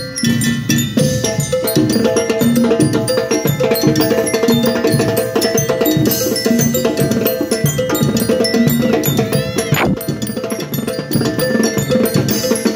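School rhythm band playing: bell lyres ring out the melody over drums.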